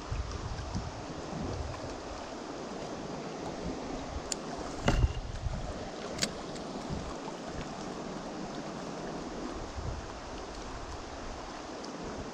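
Steady rush of fast-flowing river water. A few sharp clicks or knocks come in the middle, the loudest about five seconds in.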